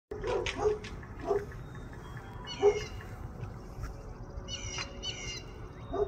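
A dog giving short barks or yips, a few in the first second and a half and one louder about two and a half seconds in. Higher-pitched bird calls come once in the middle and again a little before the end.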